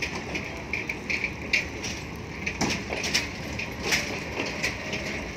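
Passenger train coaches rolling past on the track, with their wheels knocking over rail joints and points at uneven intervals over a steady rumble.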